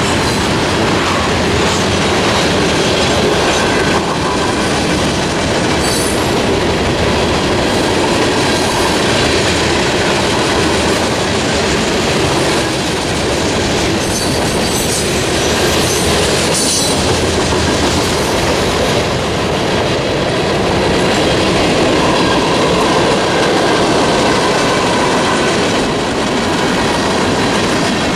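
Freight cars of a long mixed freight train rolling through a level crossing: a steady, loud rumble and clatter of steel wheels on the rails. A few brief high-pitched squeaks come through around six seconds in and again near the middle.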